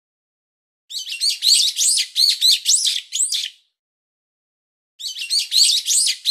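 Chicks cheeping, a sound effect: a run of rapid high peeps lasting about two and a half seconds, then the same run again after a gap of about a second and a half.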